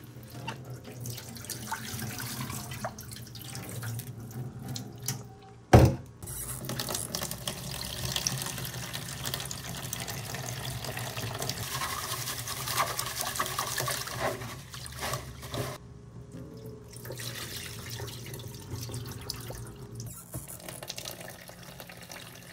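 Sushi rice being rinsed in a plastic bowl in a stainless-steel sink: cloudy rinse water poured off, the grains rubbed and swished by hand in the water, and the tap running into the bowl. A single sharp knock about six seconds in.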